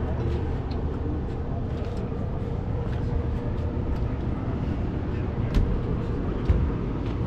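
A vehicle engine running steadily as a low rumble, with a couple of light clicks near the end.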